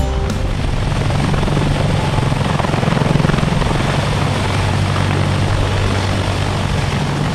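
Sikorsky CH-53K King Stallion heavy-lift helicopter running close by: its three General Electric T408 turboshaft engines and seven-bladed main rotor make a steady, loud low thrum over a wide rushing noise.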